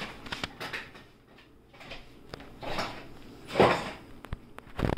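Wet mop swishing across a tile floor, with a few light knocks and clicks as it bumps against chair legs and cabinet bases; the loudest swish comes about three and a half seconds in.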